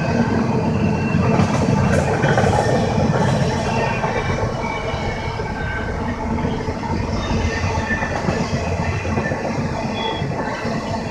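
Double-stack intermodal container cars of a freight train rolling past: a steady rumble and rattle of steel wheels on rail, with a few clanks in the first few seconds and faint wheel squeal.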